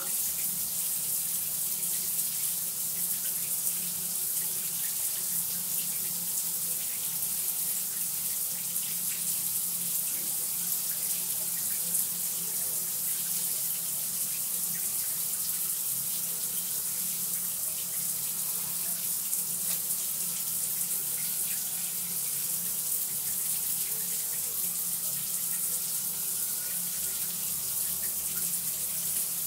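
Water running steadily, an unbroken hiss.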